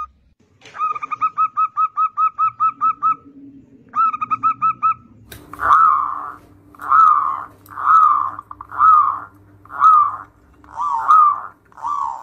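Zebra doves (perkutut) cooing. First comes a quick run of short, even staccato coos, about five a second, in two bursts. Then a second dove gives a slower series of longer, wavering coos, about one a second.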